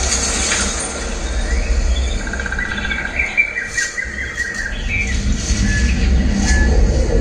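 Birds chirping in short trills over a deep, steady rumble, played back through a JBL 3.1 soundbar as a demo soundtrack with the bass turned up high.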